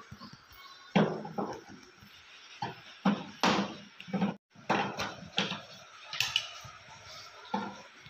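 Irregular clicks and knocks of a screwdriver and hand tools against a washing machine's plastic base as its screws are taken out.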